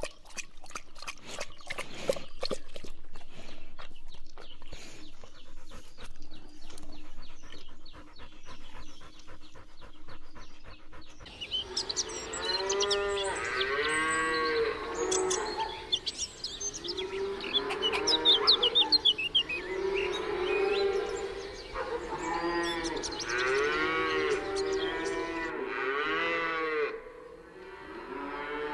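Cattle mooing, several animals calling over one another in repeated rising-and-falling calls. About the first ten seconds before the calls begin are a run of rapid clicks and clatter over a faint steady hum.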